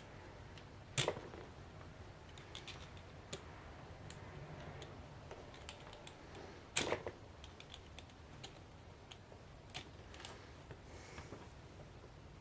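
Small metal clicks and taps of a screwdriver prying at the clip on an American 5200 padlock, with two louder clacks, one about a second in and one near seven seconds.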